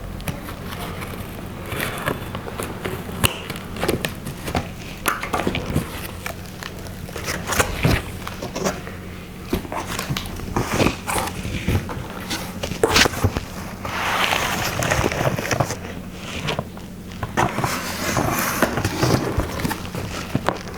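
A cardboard box and its packaging being opened and handled: irregular knocks and taps, with stretches of scraping and rustling, over a steady low hum.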